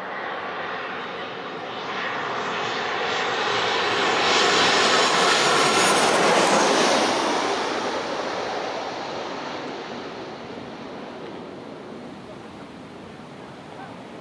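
Airliner passing low overhead on its landing approach: the engine noise builds over the first few seconds, is loudest about five to seven seconds in with a high engine whine in it, then fades away as the plane goes on toward the runway.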